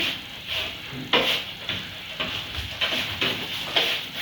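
A utensil stirring and scraping around a mixing bowl in short strokes, about two a second, creaming margarine and sugar into cookie dough by hand.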